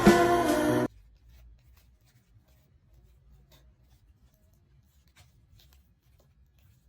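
Background music that cuts off abruptly about a second in, followed by near silence with a faint low hum and a few faint ticks.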